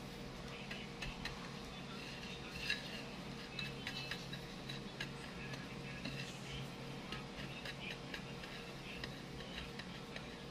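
Light, irregular clicks and ticks of hands rolling a graham ball in graham cracker crumbs on a plate, over a steady low hum.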